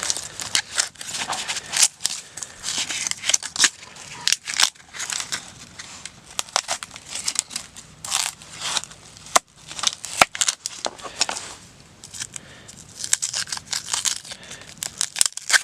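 An onion being peeled and cut by hand: its dry papery skin crackles and tears in irregular rustles, with sharp little clicks scattered throughout.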